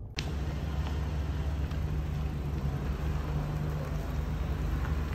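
Mahindra XUV700 SUV's engine running as the car creeps forward: a steady low rumble.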